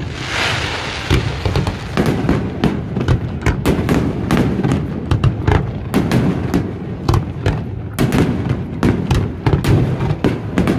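Aerial fireworks bursting in quick succession: a dense string of sharp bangs a few tenths of a second apart, with a hissing crackle in the first second or so.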